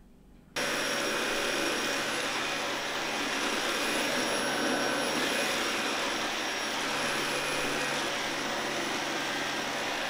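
Vacuum cleaner running steadily: an even rushing hiss with a faint constant whine, starting suddenly about half a second in.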